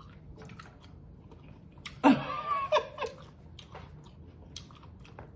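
Close-miked chewing of seafood boil, with scattered wet mouth clicks and smacks. About two seconds in comes a short, loud wordless vocal sound, like a giggle or exclamation.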